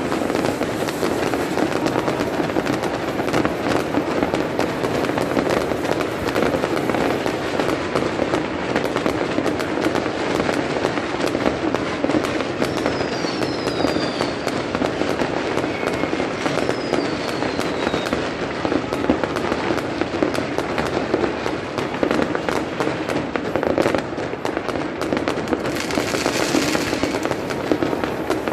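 Many fireworks and firecrackers going off at once: a dense, unbroken crackle of pops and bangs, with a few falling whistles about halfway through and a short hiss near the end.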